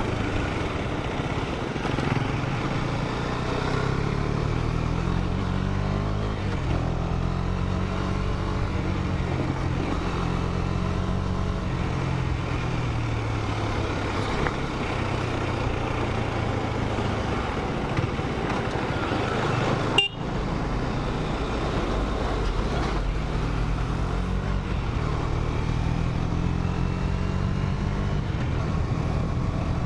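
KTM 250 Duke's single-cylinder engine running on the move, its pitch climbing as the rider accelerates and falling back as he eases off, over a steady rush of wind and road noise. A single sharp click cuts through about two-thirds of the way in.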